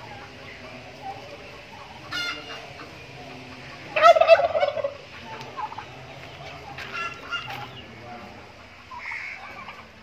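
Domestic turkey toms gobbling: short calls about two, four and seven seconds in, the one at about four seconds the loudest, with a weaker call near the end.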